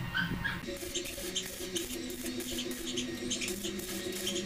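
Stick-welding arc crackling irregularly as a hinge is welded onto a steel door jamb, starting about a second in, with background music playing under it.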